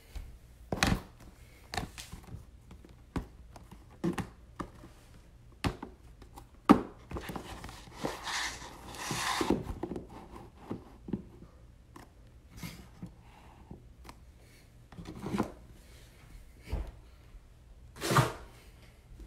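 Trading-card boxes being set down and stacked on a desk: a string of separate knocks and thuds, one sharper knock a little before seven seconds in, with a scraping, sliding stretch around eight to ten seconds.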